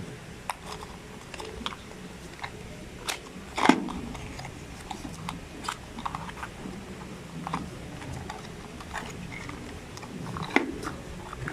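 Small cardboard product box being opened and its contents unpacked by hand: scattered crackles and clicks, the loudest a little under four seconds in and another near the end.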